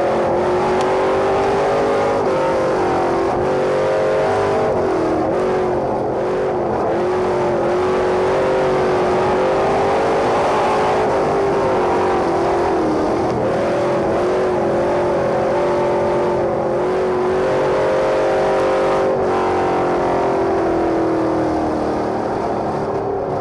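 Dodge Dakota pickup being driven, heard from under the body at the front wheel: steady engine and road noise with a tone that shifts up and down with speed, falling away near the end as the truck slows.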